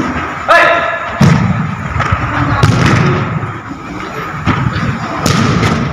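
A football being kicked on an indoor artificial-turf pitch: several sharp thuds spread out, in a large echoing hall. A player gives a short shout about half a second in.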